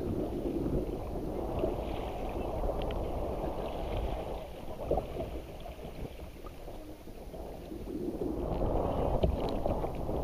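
Choppy lake water splashing and lapping against a kayak's hull as it is paddled, with gusty wind rumbling on the microphone. The wind noise grows louder near the end.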